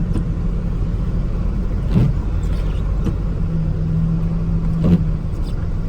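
Pickup truck driving: steady low engine and road rumble with a hum, and two light knocks about two and five seconds in.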